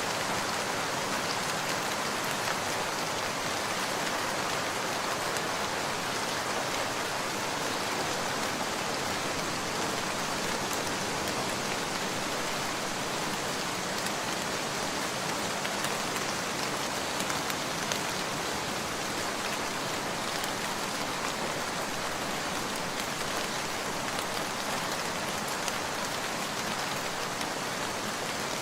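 Steady, even rain falling on a surface, with scattered drop ticks.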